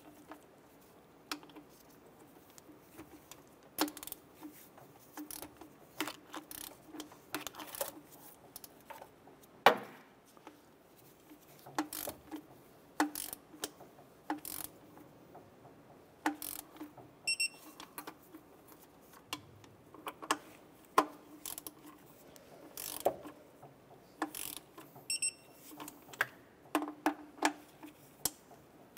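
Torque wrench ratcheting in short, uneven runs of clicks as the throttle body bolts are tightened to 16 foot-pounds, with one sharper knock about ten seconds in. A short high beep sounds twice, past the middle and near the end.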